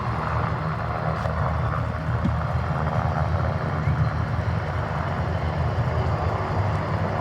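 Army UH-60 Black Hawk and UH-72 Lakota helicopters flying, a steady rotor and turbine drone.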